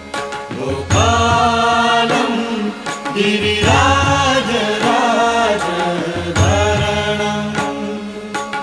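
Background music: a voice singing a devotional chant in drawn-out phrases over a steady low drone.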